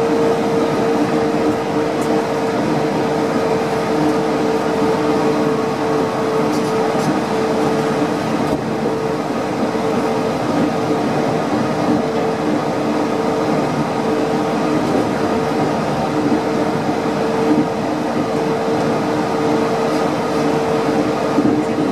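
Rubber-tyred Yurikamome automated guideway train running at a steady pace, heard from inside the car. An even rumble carries a steady hum held at one pitch, with no change in speed or level.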